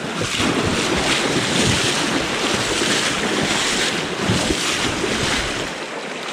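Small creek's water rushing and churning in a steady flow close to the microphone.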